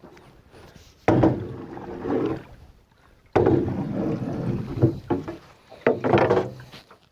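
Thumps and clattering in a small john boat as someone moves about in it. There are two loud, noisy passages starting suddenly, about a second and about three and a half seconds in, with several sharp knocks near the end.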